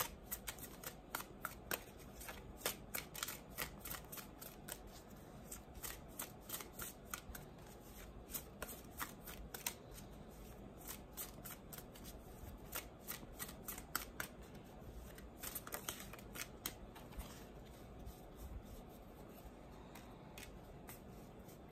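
A deck of tarot cards being shuffled by hand: faint, irregular runs of light card clicks and flicks with short pauses.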